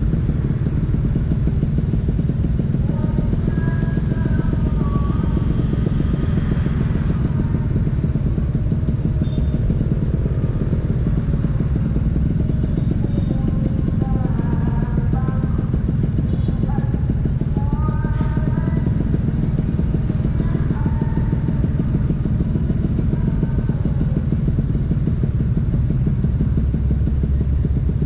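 Vespa PX 150's single-cylinder two-stroke engine running steadily through an aftermarket DRC Victory racing exhaust.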